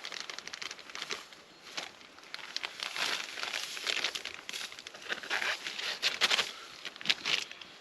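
Irregular crinkling and rustling with short crackly clicks, as of something being handled close by, busiest in the middle of the stretch.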